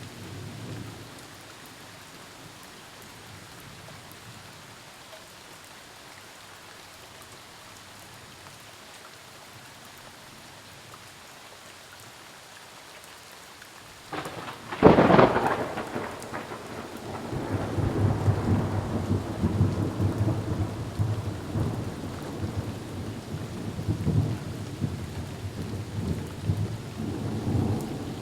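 Steady rain falling, then about halfway through a sharp, loud thunderclap from a close lightning strike that rolls into a long rumble of thunder lasting to the end, with the rain continuing underneath.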